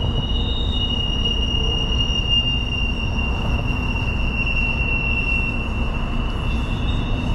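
Freight train's intermodal container cars rolling past with a steady high wheel squeal, its pitch wavering slightly, over a constant low rumble of the wheels on the rails.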